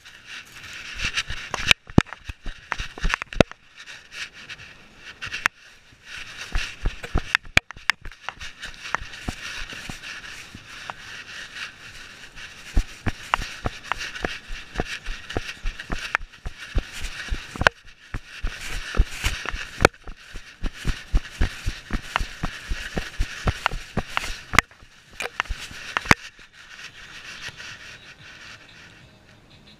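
A dog-mounted GoPro jolting with each of the dog's strides, giving a fast run of knocks, about three a second, with the dog's panting as a steady hiss over it. The knocks pause briefly now and then and fade near the end.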